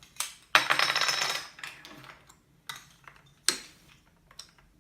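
Small plastic game bricks clicking and clattering as they are handled and stacked into a wall. There is a longer rattling clatter about half a second in, then single clicks.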